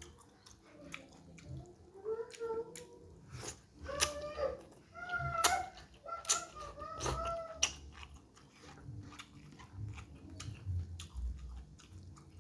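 A person eating instant noodles with his hands: wet chewing and lip smacks throughout. Louder slurps of noodles come in the middle.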